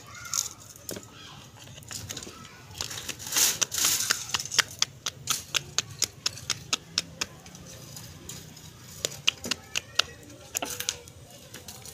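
Hands patting a ball of paratha dough back and forth between the palms: a run of quick, sharp slaps at about four a second, with a few more slaps later on.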